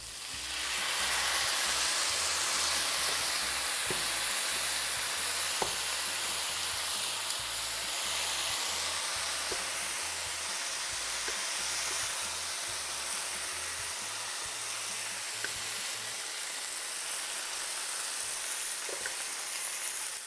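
Soy-based dipping sauce sizzling in a hot stainless steel skillet around sesame-crusted ahi tuna steaks: the sizzle swells about half a second in as the sauce hits the pan and then holds steady. A few light clicks of metal tongs against the pan.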